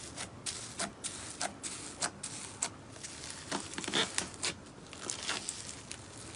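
Slime being squeezed and poked by hand, giving irregular clicks and small pops, several a second.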